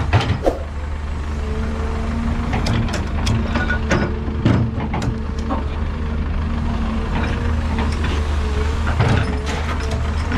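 Heavy diesel construction machinery running steadily with a low drone and a steady whine, with scattered metallic clanks and knocks throughout.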